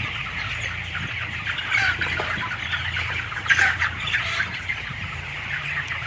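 A flock of 28-day-old broiler chickens clucking and calling as a dense, continuous chatter, with a few louder calls standing out. Under it runs the steady low hum of the shed's ventilation fans.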